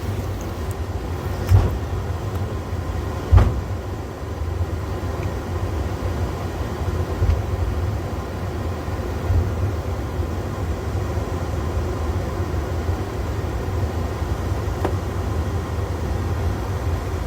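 Steady low rumble inside an Airbus A330 cockpit as the airliner taxis, with two sharp knocks about one and a half and three and a half seconds in.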